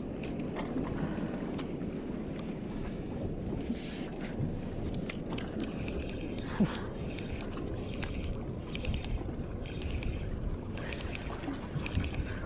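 A small fishing boat at sea: steady wind and water noise, with scattered light clicks and one sharp knock about six and a half seconds in.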